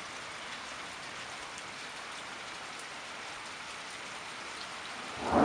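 Steady heavy rain falling, a constant hiss with scattered drop ticks. Near the end a loud low rumble of thunder starts to build.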